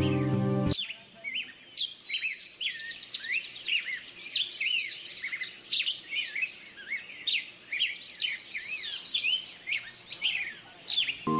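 A dense chorus of many small birds chirping and twittering, short calls sweeping up and down in pitch and overlapping throughout. Music cuts out about a second in and comes back at the very end.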